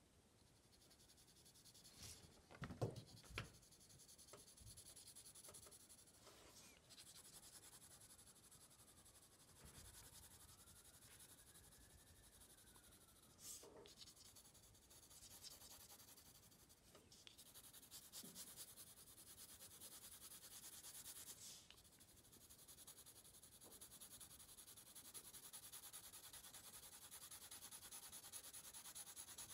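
Pencil shading on white card: a faint, steady scratchy rubbing of the lead back and forth, with a few soft knocks in the first few seconds.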